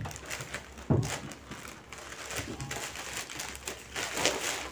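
Plastic courier mailer bag crinkling as a child pulls and handles it to open it, with one dull knock about a second in.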